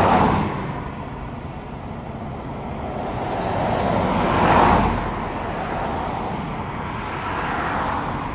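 Road traffic: vehicles passing one after another with a rushing sound that swells and fades three times, the loudest pass about halfway through.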